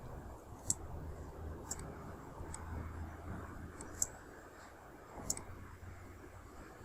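Computer mouse clicking about six times at irregular intervals, over a low steady room hum.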